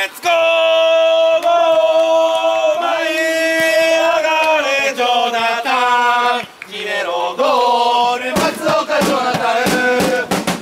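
Football supporters chanting in unison on long, drawn-out notes, a pre-match chant. About eight seconds in, a drum starts beating steadily under the singing.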